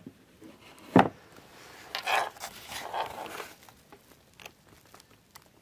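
A sharp thump about a second in, followed by a second and a half of rustling and scraping, as of hands and clothing handling objects; a few faint ticks near the end.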